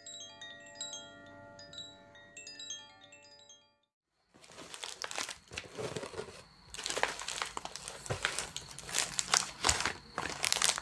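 A short melody of ringing chime notes for about four seconds, then a brief silence, then close-up crinkling and crumpling with many sharp taps and clicks.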